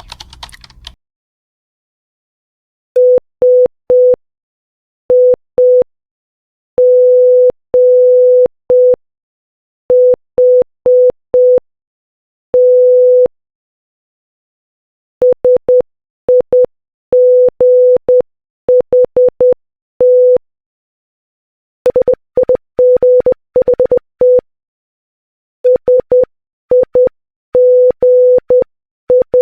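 Morse code beeps on a steady tone of about 500 Hz spelling "SIGHT" (... .. --. .... -). It is sent once slowly, then repeated several times at faster speeds. A brief faint noise comes at the very start.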